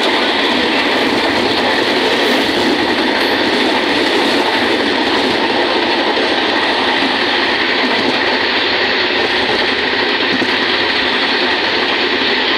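Moving passenger train heard from inside the coach: a steady, loud running noise of wheels on the rails, unbroken throughout.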